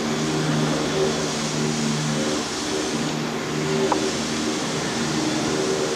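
Steady machine hum with a hiss underneath, a few low tones coming and going every second or so.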